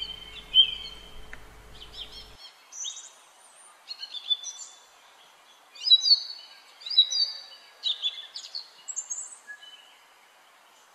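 Small songbirds chirping and calling: many short, high notes and brief trills from more than one bird, the busiest stretch about six to nine seconds in, over a faint outdoor hiss.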